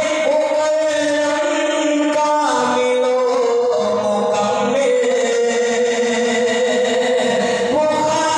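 A man's voice singing a naat, an Urdu devotional poem in praise of the Prophet, solo and unaccompanied. He draws out long held notes that bend slowly up and down in pitch.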